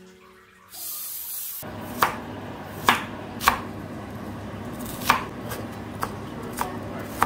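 Chef's knife chopping a red onion on a wooden cutting board: irregular sharp knocks of the blade hitting the board, starting about two seconds in. Before that, soft music ends and there is a short hiss.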